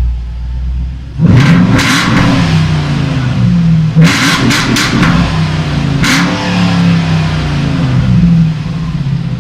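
Jaguar XK 4.2-litre V8 exhaust with electronic cutout valves: a low idle rumble, then about a second in it gets suddenly much louder and revs repeatedly, the pitch rising and falling with several sharp blips.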